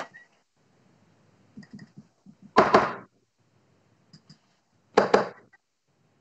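Two sharp thuds about two and a half seconds apart, each dying away over a fraction of a second: darts striking a bristle dartboard. A few faint knocks come just before the first.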